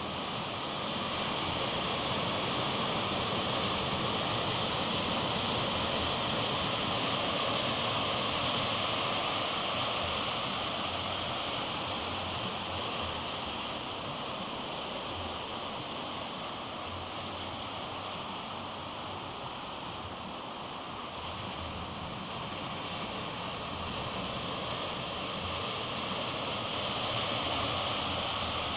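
Steady rush of surf and churning whitewater from waves breaking across a river-mouth channel, swelling a little a second or two in and again near the end.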